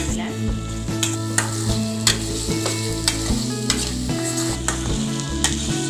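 A spatula stirring and scraping a thick mushroom gravy around a steel kadai, with repeated scrapes and light clinks over a frying sizzle as the coconut-milk gravy cooks down. Steady background music runs underneath.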